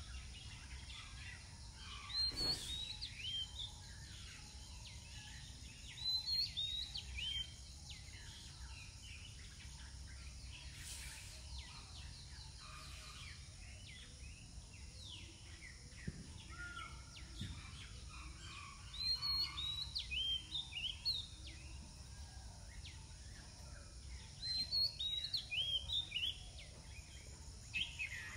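Birds calling outdoors: four bursts of quick, high chirping notes, about two seconds in, around six seconds, around nineteen seconds and near the end, over a constant background of fainter bird chatter and a low rumble.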